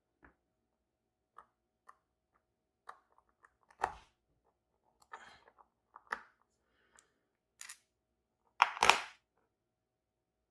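Scattered small metallic clicks and taps from handling a Banham M2002 lock's parts and tools while taking the lock apart, with a louder short clatter near the end.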